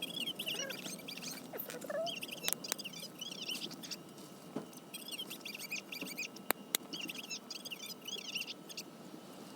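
A small bird singing in short, repeated phrases of quick high chirps, with a few sharp pops from the wood fire in between.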